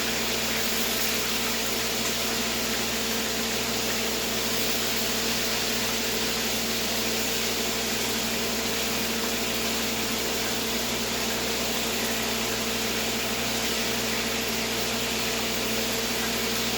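Pieces of deer heart frying in hot oil in a pan: a steady sizzle, over a constant low electrical or fan hum.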